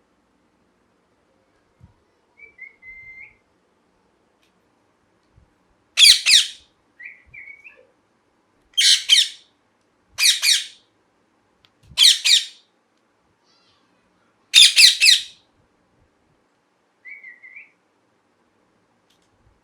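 Ringneck parrot giving five loud, harsh screeches spaced a few seconds apart, with a few soft, short whistled chirps in between.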